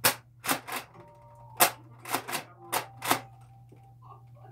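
Nerf Raider CS-35 pump-action spring blaster being pumped and fired in quick succession: about eight sharp plastic clacks and pops in some three seconds, several in close pairs, then it stops.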